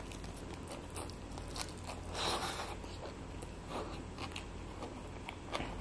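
Close-up chewing of a mouthful of rice eaten by hand: scattered soft wet mouth clicks, with a louder burst about two seconds in, over a low steady hum.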